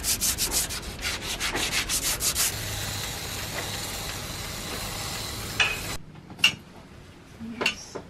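Fiberglass hull being hand-sanded with a sanding pad, quick scraping strokes about four a second, preparing the surface around the bow thruster tunnel for laminating. About two and a half seconds in, a cordless drill with a sanding attachment runs steadily inside the tunnel. Near the end it gives way to quieter rustling and a few light clicks.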